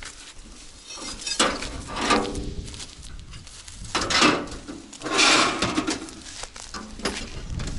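Intermittent rustles, scrapes and light metallic clatter from someone handling the metal of a combine harvester and taking hold of its ladder, in a few short bursts, with the engine not yet running.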